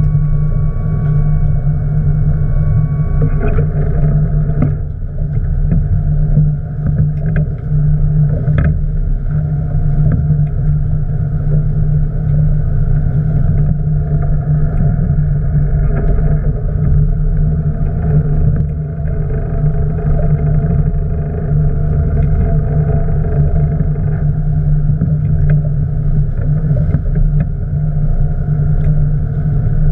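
Boat engine running steadily, a constant low hum. A thin high whine over it stops a few seconds in.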